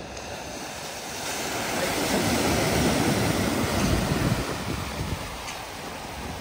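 Mercedes-Benz Sprinter van driving fast through a flooded ford, its wheels and front pushing up a bow wave of rushing, splashing water. The water noise builds about two seconds in and eases again after about four and a half seconds.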